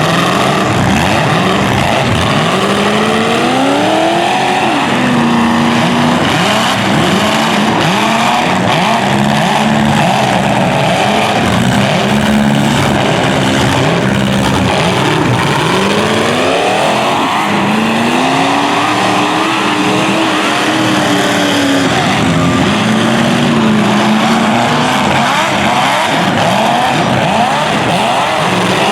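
Several demolition derby cars' engines revving hard at once, their pitches repeatedly rising and falling, amid steady loud engine and tire noise.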